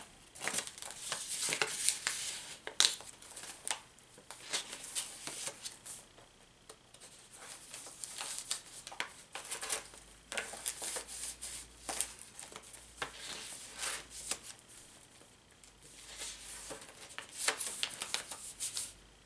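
Paper rustling and crinkling as the pages and tucked-in papers of a handmade junk journal are turned and handled. It comes in short bursts with brief quieter pauses.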